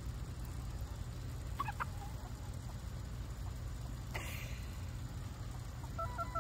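Chickens clucking faintly: a couple of short calls a second and a half in and a few short notes near the end, with one brief rustling burst about four seconds in, over a steady low rumble.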